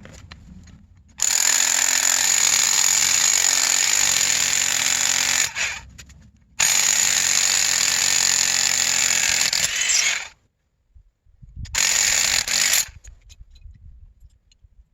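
A power tool running in three bursts: two long runs of about four seconds each, then a short one of about a second, with brief pauses between.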